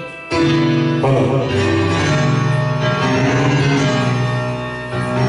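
Instrumental music from a film song, played over a sound system, starting after a brief gap about a third of a second in.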